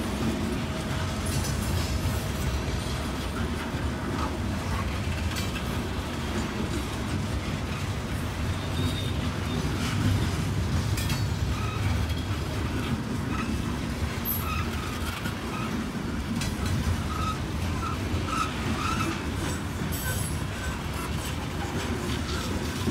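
Loaded coal hopper cars of a long freight train rolling past at low speed: a steady rumble of steel wheels on rail, with occasional clanks and faint wheel squeals.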